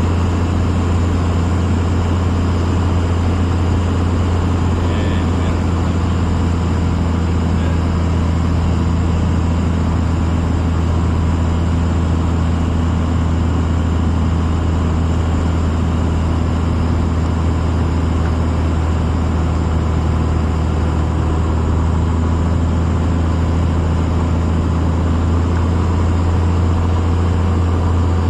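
Cessna 182's piston engine and propeller droning steadily at a constant power setting.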